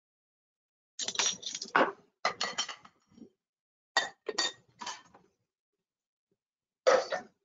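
Metal kitchen utensils and dishes clinking and clattering against each other in four short spells, with a slight ring to the clinks.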